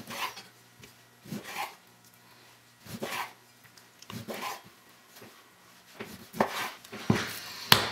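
Knife slicing through raw pork on a bamboo cutting board: about ten short slicing strokes in uneven clusters, each ending on the wood.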